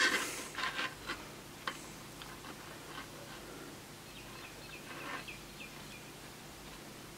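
A few light clicks and taps as a small circuit board is handled and positioned, then faint room tone with a short run of faint high chirps about four to five seconds in.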